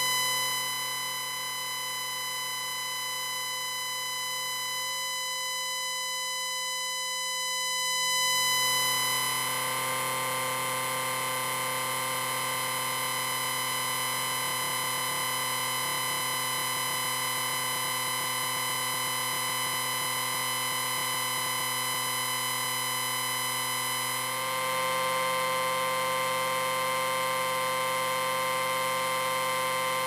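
Synthesized sci-fi 'radio wave' sound effect: a steady electronic drone of many held tones layered with hiss. It swells and turns noisier about eight seconds in and shifts again a little before the end.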